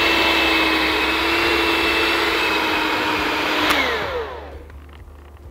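Electric hand mixer with dough hooks kneading dough, its motor running with a steady whine. Nearly four seconds in it is switched off with a click and the motor's pitch falls as it spins down.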